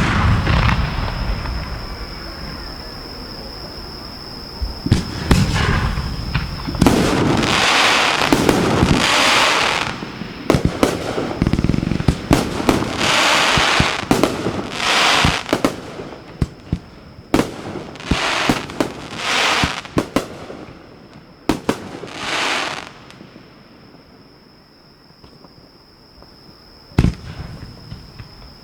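Fireworks fired at close range: sharp bangs of shells launching and bursting, mixed with long hissing, crackling bursts lasting one to three seconds each. The show thins out near the end, and one more loud bang comes just before it stops.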